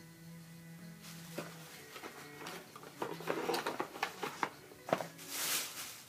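Handling noises of items being moved and picked up: a few soft knocks and clicks, and a short rustle of packaging near the end, over quiet background music.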